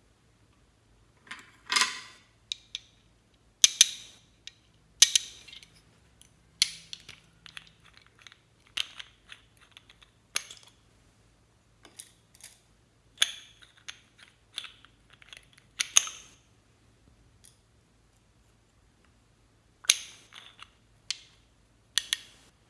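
Small lip tint bottles being handled, uncapped and capped: irregular sharp clicks and taps of the caps and bottles, some followed by a brief rustle.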